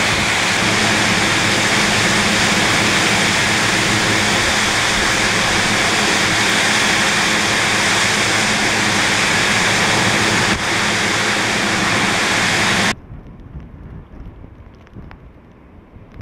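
Typhoon wind and heavy driving rain, a loud steady rushing noise that cuts off abruptly about 13 seconds in, leaving a much quieter, gusty wind hiss.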